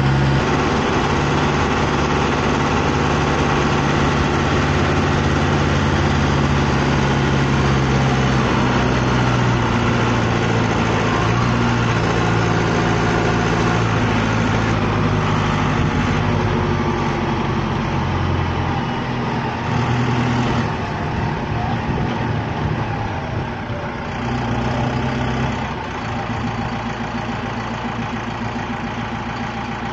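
Lindner Lintrac tractor's diesel engine running steadily, its pitch shifting a little and the sound easing off somewhat in the last third.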